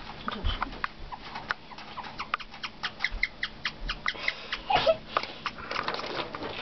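Guinea pig chirping: a rapid run of short, high, bird-like chirps, several a second, with a louder, lower sound about five seconds in.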